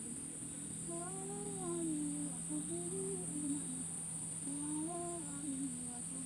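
A man humming a slow, wavering tune, likely a sholawat devotional melody, in phrases of a second or two with short breaks. A steady high insect buzz runs behind it.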